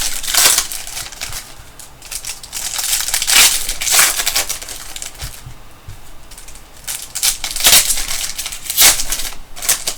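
Trading card pack wrappers crinkling and tearing as packs are ripped open, with irregular louder crackles.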